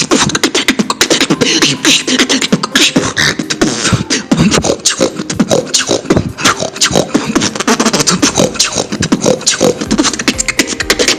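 Human beatboxing: a fast, dense beat of mouth-made kicks and snares woven with snore bass, the inward-pulled, snoring 'pig sound' made through the nose and mouth.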